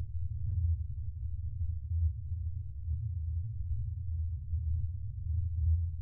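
Spaceship interior ambience sound effect: a steady deep hum with slight swells in level.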